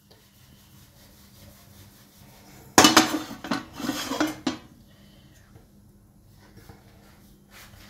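Metal cookware clattering and scraping on a gas stove for about two seconds, starting suddenly a few seconds in. Otherwise quiet, with a faint steady hum.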